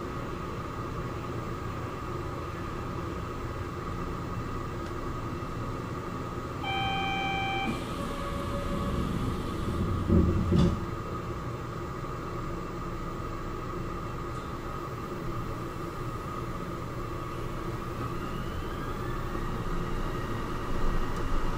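Kobe Port Liner automated train standing at the platform, its onboard equipment giving a steady hum. About seven seconds in comes a short beep lasting about a second. A loud low thud follows about three seconds later. Near the end a rising whine sets in as the train begins to pull away.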